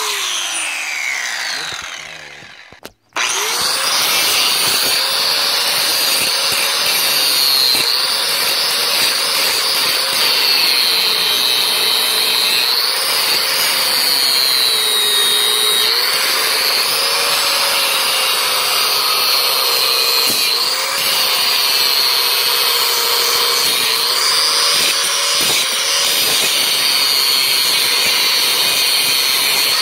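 Angle grinder grinding a steel exhaust-pipe flange. Near the start it spins down, falling in pitch, to a brief stop about three seconds in. It then runs again at full speed, its whine dipping and recovering over and over as the disc is pressed into the metal.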